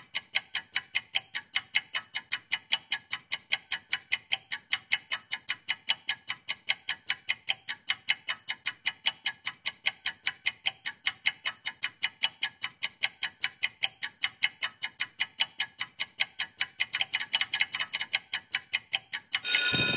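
Countdown-timer ticking sound effect: even, sharp clock ticks at about four a second. Just before the end comes a short, loud alarm-like ringing tone as the countdown runs out.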